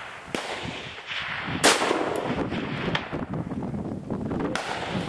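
A single shot from a Blaser rifle in .338 Lapua Magnum about a second and a half in: one sharp crack with a long tail of echo after it. Fainter knocks come shortly before and near the end.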